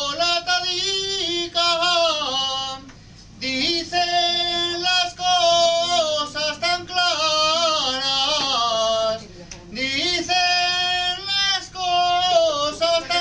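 A man singing an Aragonese jota unaccompanied, in a high, strong voice with long held, ornamented phrases. The line breaks off briefly twice.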